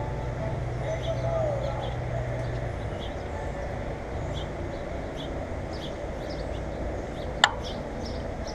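Small birds chirping, short high calls repeating about once or twice a second, over a steady low rumble. A single sharp click about seven and a half seconds in.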